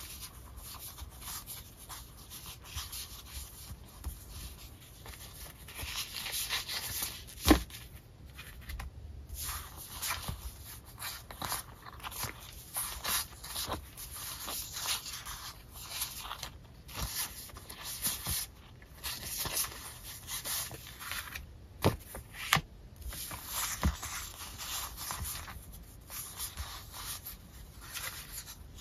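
Paper sticker sheets handled and sorted by hand: sheets sliding and rubbing against one another as they are leafed through and laid on piles. Occasional sharp taps, the loudest about seven and a half seconds in.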